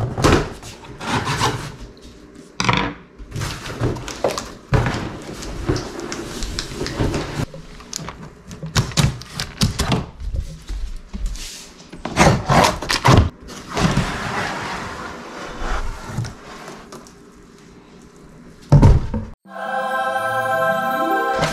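A large cardboard shipping box being handled and opened, with irregular knocks, thunks and rustles of tape and flaps, and music over it. Near the end a rising musical swell takes over.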